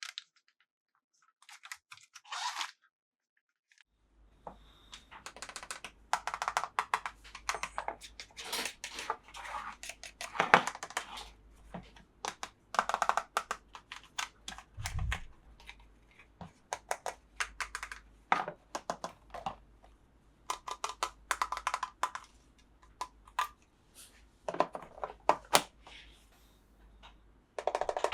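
Close-up handling of toy packaging: plastic and cardboard crinkling and tearing, with irregular clusters of small sharp clicks and taps. It starts about four seconds in and goes on in bursts.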